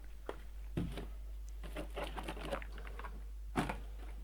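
Light, irregular taps and clicks from a small plastic RC crawler knocking against the course, a handful of soft knocks over a few seconds.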